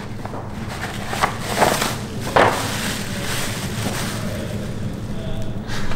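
Tissue paper and a paper gift bag rustling and crinkling as a bottle is pulled out, a few short crinkles in the first half, over a steady low background hum.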